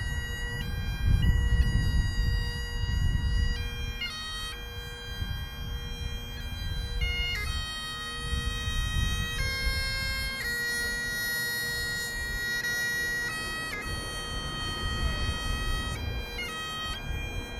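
Bagpipes playing a slow melody of long held notes over a steady drone.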